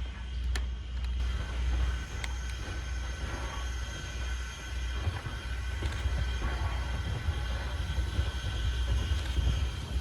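Steam locomotive running with its excursion train, a steady low rumble.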